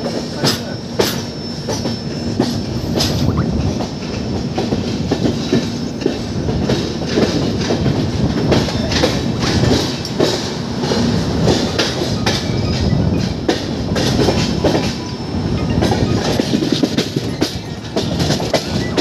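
Passenger train running, heard from on board: a steady rumble with an irregular clatter of wheels over track joints. A thin, high wheel squeal sounds during the first few seconds.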